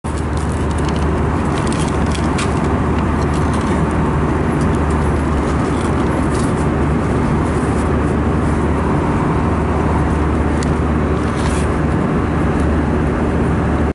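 Steady roar of an Airbus A320-family airliner cabin in flight: a constant low engine and airflow hum. A few brief crinkles of a plastic chip bag and water bottle are handled close by.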